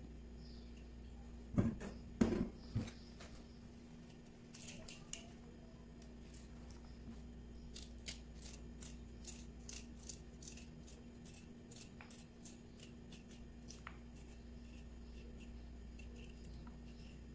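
Small kitchen knife cutting into a raw kohlrabi: a few knocks on the cutting board near the start, then a long run of short, crisp cuts, about one or two a second.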